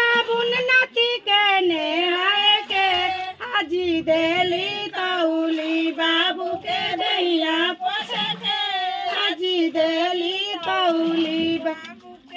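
Group of high voices, women and girls, singing a traditional wedding folk song together, a bathing song whose verses name scented soap and a towel given for the bath. The singing carries on in a steady melody and breaks off briefly near the end.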